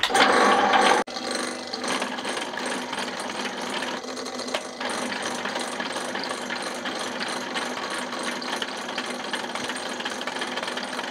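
Drill press boring a half-inch hole through steel: a steady mechanical cutting noise. A louder burst in the first second cuts off abruptly.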